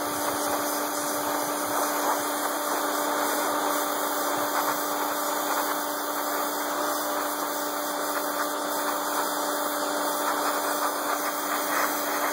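Pressure washer running with a steady hum, its water jet hissing against steel frame rails and blasting off the rust scale and old paint loosened by electrolysis.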